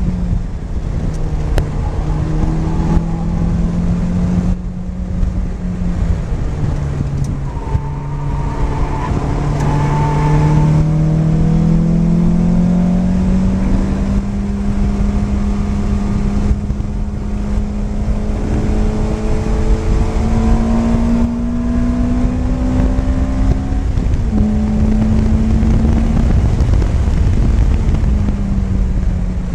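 Lotus Elise's four-cylinder engine heard from inside the cabin while lapping a track, its note climbing under acceleration, holding high along a straight and dropping briefly as the car lifts and shifts for corners.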